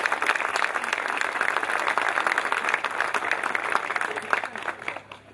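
Audience applauding, many hands clapping at once, dying away about five seconds in.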